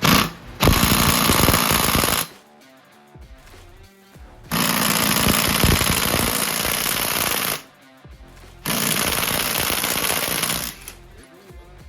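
Impact wrench hammering in three bursts of two to three seconds each, starting and stopping abruptly, as it works fasteners on a KTM EXC 300 two-stroke engine being torn down.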